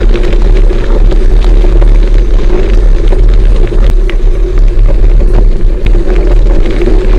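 Fat bike riding a gravel track, picked up by a camera mounted on the bike: a loud, steady rumble of tyre noise and vibration, with small rattles and clicks throughout.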